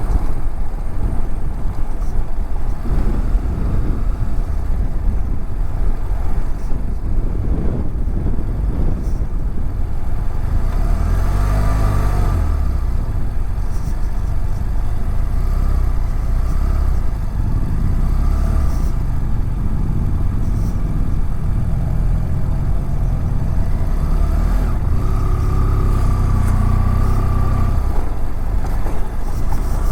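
BMW F700GS motorcycle's parallel-twin engine running on the move, heard through a helmet-mounted camera under a heavy low rumble. The engine pitch rises and falls about twelve seconds in, and holds steadier near the end.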